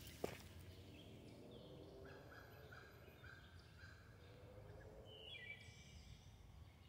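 Faint birdsong: a run of about half a dozen short, evenly repeated notes about two seconds in, then a single falling call about five seconds in, over quiet outdoor background noise.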